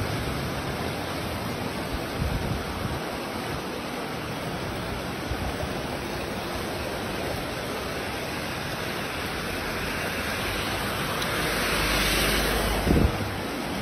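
Heavy typhoon rain and floodwater running across a road: a steady rushing hiss that swells near the end, with a brief thump just before it ends.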